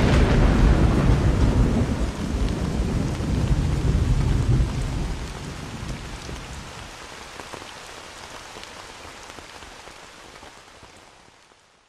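Rain falling with thunder rumbling. The rumble dies away after about five seconds, and the rain then fades out gradually to silence.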